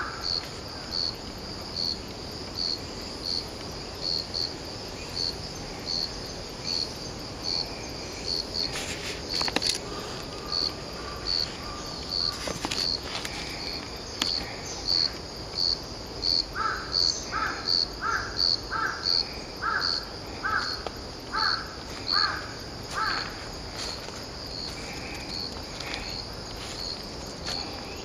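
A cricket singing its autumn song: a short, high chirp repeated steadily, a little more than once a second. Near the middle a run of about nine lower, louder calls joins in.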